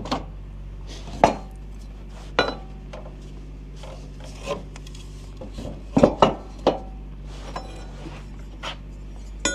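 Scattered knocks and clinks of wooden blocks and tools being handled, a dozen or so separate hits with a cluster about six seconds in, over a steady low machine hum.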